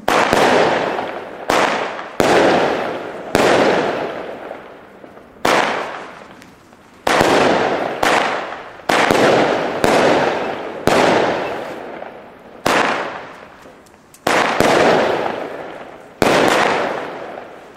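WECO Bloody Brilliant firework battery firing shot after shot, about thirteen in all at irregular gaps of one to two seconds. Each shot is a sudden bang followed by a hiss that fades over a second or so.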